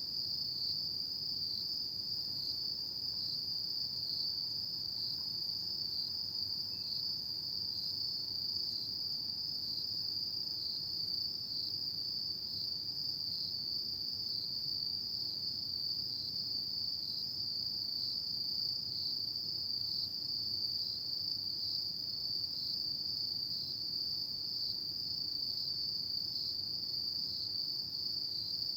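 Autumn insects calling at night: a steady, high-pitched, unbroken trill with a faint regular pulse, over a soft low background hiss.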